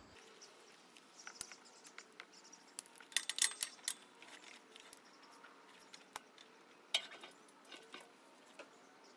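Rubber hydraulic hoses being pulled and fed under a compact tractor's floorboard, scraping and rustling against the tractor, with scattered light clicks. The handling noises are busiest about three to four seconds in, and a sharp click comes near seven seconds.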